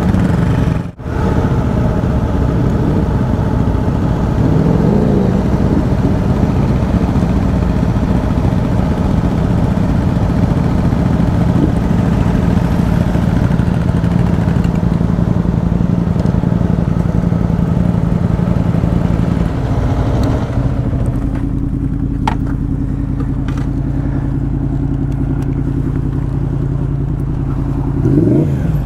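Motorcycle engines idling steadily. About two-thirds of the way through, the higher hiss drops away and the low, even engine note carries on.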